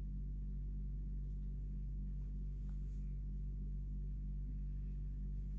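Steady low electrical hum with several evenly spaced overtones, unchanging; a faint click about two and a half seconds in.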